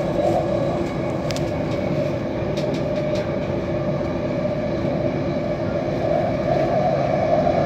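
Delhi Metro electric train running steadily along the track, heard from inside the carriage, with a few light clicks in the first few seconds.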